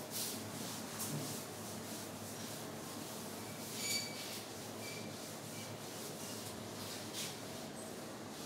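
A board duster wiping chalk writing off a chalkboard in a series of irregular rubbing strokes, the strongest about four seconds in.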